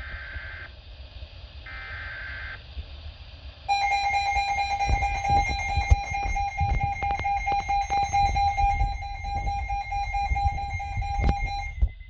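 A weather-alert broadcast's digital header plays as short bursts of warbling data tones, repeating about once a second. At about four seconds in, the ER210 emergency weather radio's alert alarm starts: a steady, buzzy tone held for about eight seconds, signalling an activated warning. Scattered clicks and a low rumble run underneath.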